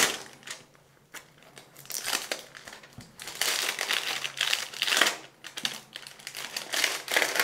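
Clear plastic wrap being torn and peeled off a phone's cardboard box, crinkling in uneven rustles. A short sharp tear comes at the start, and the crinkling picks up again about two seconds in.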